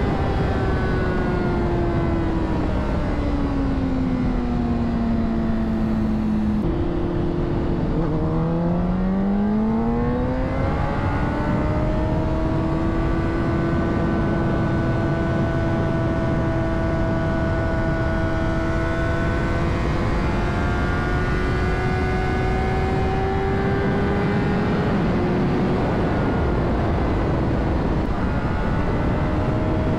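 Honda CBR600RR inline-four engine under way on the road, with wind rush. The engine note falls for several seconds as the bike slows, then climbs steeply as it accelerates about eight seconds in. It then holds steady at cruising speed, with a brief dip and pick-up near the end.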